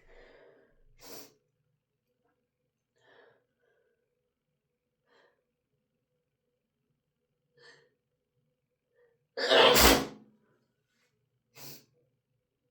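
A person sneezing hard once, about ten seconds in, after a few faint breaths, with a shorter, weaker burst soon after. The sneezing is set off by chhinkni sneezing powder and tickling the nose with a feather.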